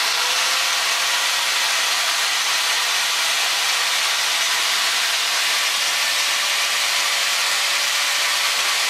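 Fein angle grinder's electric motor running free at no load: a steady high whine over a loud, even, airy hiss. The whine rises and levels off within the first second as the motor comes up to speed.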